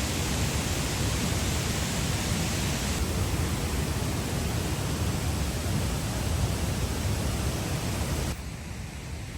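Steady rush of a waterfall running high after heavy rainfall, an even wash of noise that drops suddenly in level near the end.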